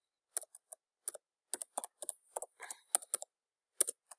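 Computer keyboard keys clicking in an irregular run of typing, about a dozen keystrokes.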